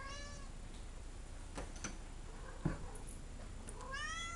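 Domestic cat meowing to be let out: a meow trails off at the start and a new rising meow begins near the end. A few light taps and one sharper knock come in between.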